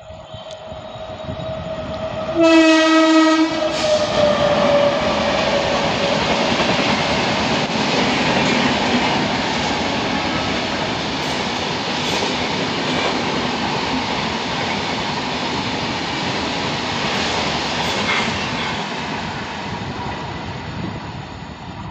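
The 16580 Shivamogga Town–Yeshwanthpur Intercity Express approaching and running past. The locomotive horn sounds for about a second, some two seconds in, and a tone then falls in pitch as the locomotive goes by. The coaches follow with a steady rumble and the clatter of wheels over the rail joints, easing off near the end.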